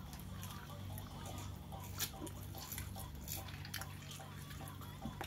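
Faint scattered clicks and crinkles of hands handling a paper-wrapped burger while eating, one more distinct about two seconds in, over a steady low hum.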